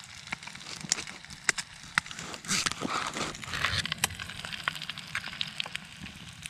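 Bacon and egg frying in hot fat in a Jiffy Pop popcorn pan on a camp stove, with scattered sharp crackles throughout. A louder sizzle starts about two and a half seconds in and lasts over a second, as the second egg goes into the pan.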